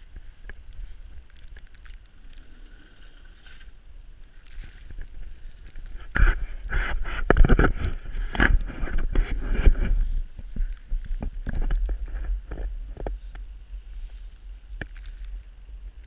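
Gusty blizzard wind buffeting the microphone with a steady low rumble, and a strong gust about six seconds in that lasts around four seconds before easing off.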